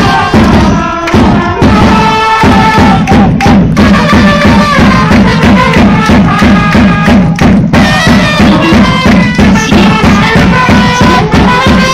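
Baseball cheering-section trumpet playing a cheering song over a steady drum beat, with fans clapping along in time.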